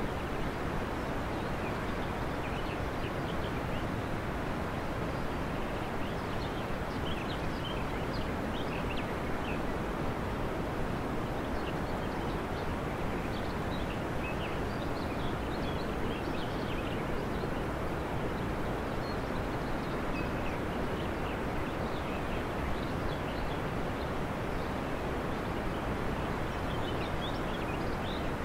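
Outdoor ambience: a steady low rumbling noise with small bird chirps scattered throughout.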